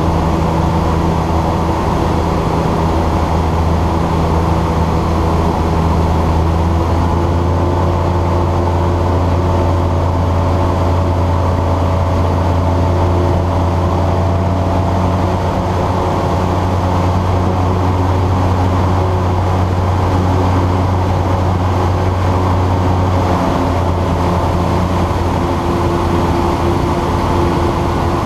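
Ikarus C42 microlight's engine and propeller droning steadily in flight, heard from on board under a rush of airflow noise. The pitch shifts slightly about six seconds in and again near the end.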